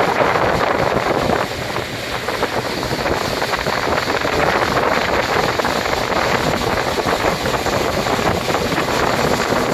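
Speedboat running fast on open water: wind buffeting the microphone over the rush of water in the wake and the outboard motor's drone, all blended into a steady loud noise that dips briefly about a second and a half in.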